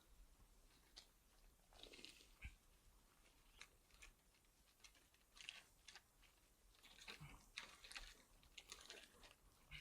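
Faint rustling and scattered clicks of climbing rope and gear being handled, more of them in the second half.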